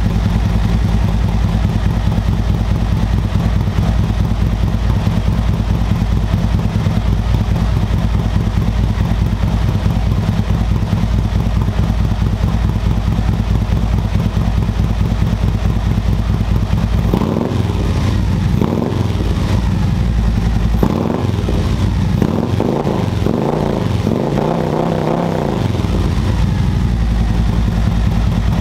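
2021 Harley-Davidson Road Glide Special's Milwaukee-Eight 114 V-twin, fitted with a Feuling 465 Reaper cam and a Khrome Werks 2-into-2 exhaust, idling steadily. About two-thirds of the way in it is revved in a series of quick throttle blips, then settles back to idle.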